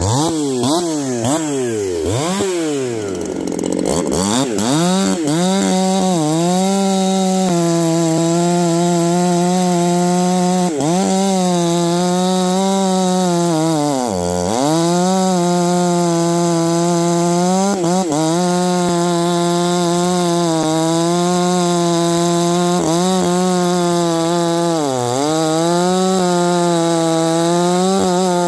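Ported Neotec NH872 two-stroke chainsaw, a Husqvarna 372 clone with a 28-inch bar, cutting wood. It is revved up and down quickly a few times, then held at high revs through a long cut, with its pitch dipping briefly several times.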